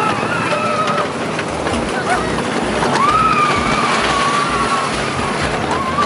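Roller coaster riders screaming over the rush and rattle of the moving train. One long scream starts about three seconds in, with shorter ones near the start and the end.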